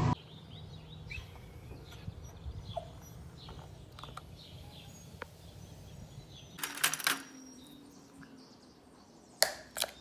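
Birds chirping over a steady low hum, as picked up by a doorbell camera's microphone. About seven seconds in comes a short clatter of handling clicks, and near the end a few sharp clicks.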